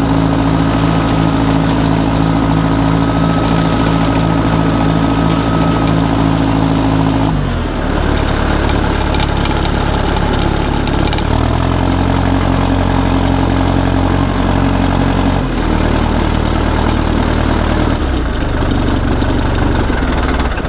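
Bulldozer engine running loud and steady while the machine crawls down a muddy trail, its engine note changing several times along the way.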